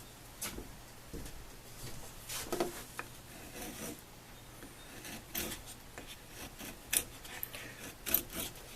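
Freshly sharpened steel chisel scraping in short, irregular strokes a second or two apart, the sharpest just before seven seconds in and another around eight seconds.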